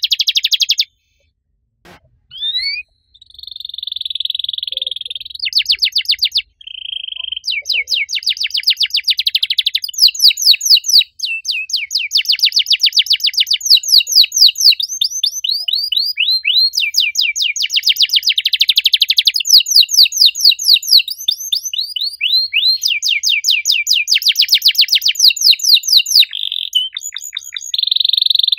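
Domestic canary singing loudly in long runs of rapid, high trills and rolls. After a short pause near the start it holds one steady whistled note for about two seconds, then goes back to fast trills that change speed from phrase to phrase.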